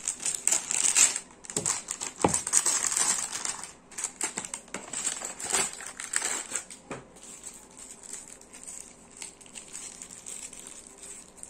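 Crinkling of a shiny plastic anti-static bag being handled and opened, with a few light knocks; it is busiest over the first few seconds, then thins to scattered small rustles.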